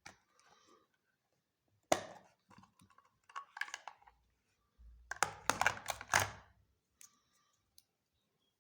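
Kids' plastic lunch box being handled: sharp plastic clicks and rattles, one about two seconds in and a quick flurry of clicks a little past the middle.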